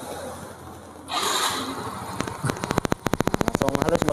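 Yamaha Mio M3's 125 cc single-cylinder scooter engine being started: a short burst of starter noise about a second in, then the engine catches and settles into an even idle with regular firing pulses. It idles steadily on a freshly fitted camshaft; the worn old cam had made it run rough and unable to hold an idle.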